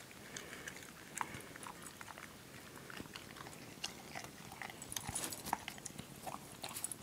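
Dog eating a soft pumpkin muffin out of a bowl: faint, irregular chewing and mouth clicks.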